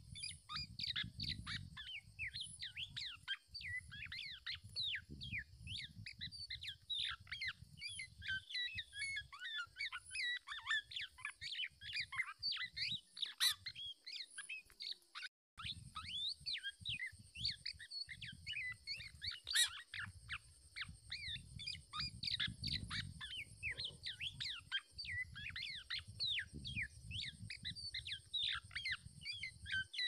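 Many small birds chirping rapidly and continuously: short, high, downward-sliding chirps overlapping one another, over a low fluttering rumble. The sound drops out briefly about halfway through.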